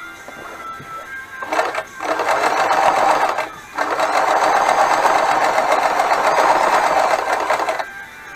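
Frister & Rossmann 502 semi-industrial sewing machine running, stitching a zigzag seam through heavy fabric. It starts about one and a half seconds in, stops briefly midway, then runs on steadily and stops near the end.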